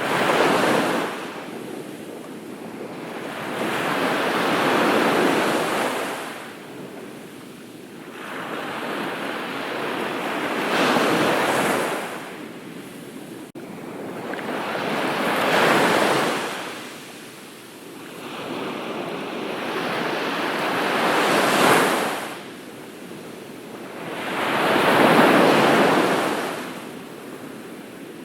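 Ocean surf washing onto a beach: waves break and recede in surges about every five seconds, six in all.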